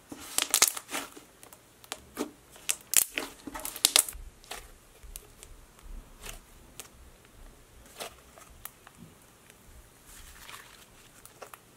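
Rubbery slime squeezed, folded and stretched by hand, giving sharp clicking and popping sounds. The pops come thick and loud for the first four seconds or so, then fall to single pops about a second apart.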